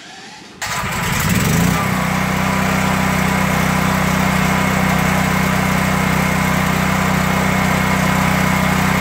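DuroMax XP10000E gasoline generator engine starting on its electric starter with the choke on: it fires about half a second in, revs up over about a second, then runs at a steady speed.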